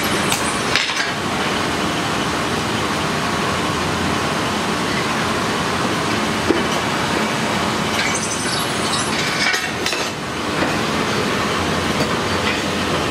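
Blacksmith's forge running with a steady rushing noise of blown air and fire while a piece of steel heats in it, with a single sharp tap about halfway through.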